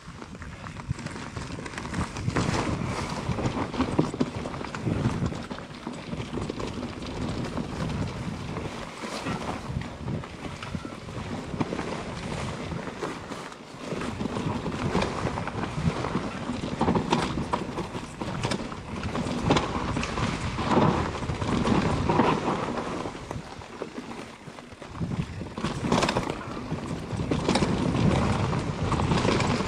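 Mountain bike riding a dirt trail: tyres rolling and bumping over rough ground, with a steady run of irregular knocks and rattles from the bike.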